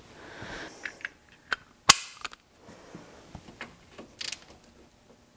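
A hand wrench clinking on a steel sway bar link bolt: scattered sharp metallic clicks, the loudest a single clank about two seconds in.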